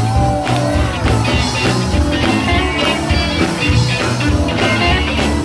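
Live gospel band music in a stretch between sung lines: a heavy bass line and regular drum hits, with guitar or vocal runs gliding over the top.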